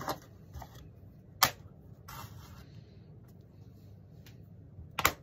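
Block magnets clicking onto a steel plate: one sharp click about a second and a half in and another near the end, with a short rubbing sound about two seconds in.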